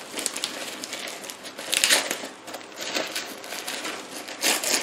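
Packing paper and bubble wrap crinkling and rustling as hands unwrap a parcel, with louder crackling bursts about two seconds in and again near the end.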